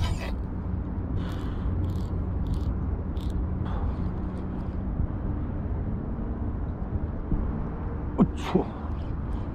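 Spinning reel and line being worked as a hooked fish is pulled in: short hissing bursts about every two-thirds of a second in the first few seconds and a few sharp clicks near the end, over a steady low rumble.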